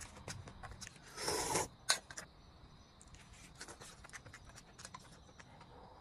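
Close-up eating and tableware sounds: faint mouth and chewing clicks throughout, a brief scraping rush about a second in, then one sharp clink just before two seconds.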